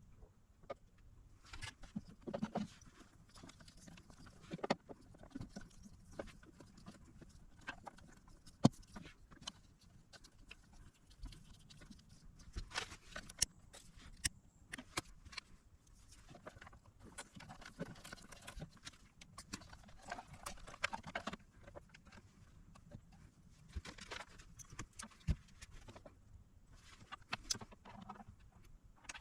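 Irregular clicks, taps and light knocks of small tools and parts being handled during rewiring work, with soft rustling between them and one sharper knock about nine seconds in.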